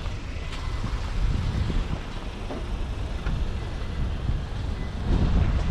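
Low, uneven rumble of vehicle traffic, swelling briefly near the end.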